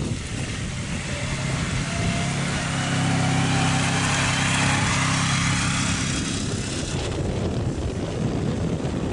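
Six-wheeled ATV driving past close by, its small engine running steadily, loudest as it passes a few seconds in and then fading away.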